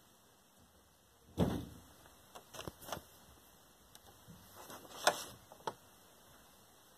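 A cardboard Funko Pop box with a plastic window being handled and turned over in the hand: a knock about a second and a half in, a few light knocks and clicks soon after, and another knock with rubbing just after the middle.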